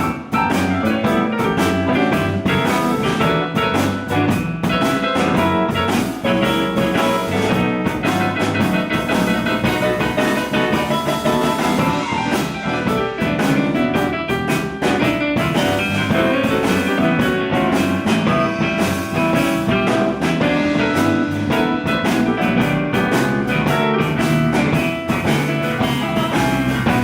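Live blues band playing an instrumental passage, with guitar over a steady drum-kit beat.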